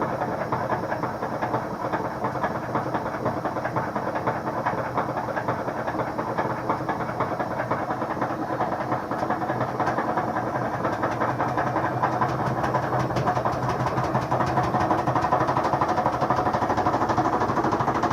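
Kenmore HE2 front-load washer spinning empty, its inner tub wobbling and slapping against the outer tub in a rapid, continuous knocking rattle that gets louder over the last few seconds. The slapping is the sign of a broken spider on the back of the inner tub.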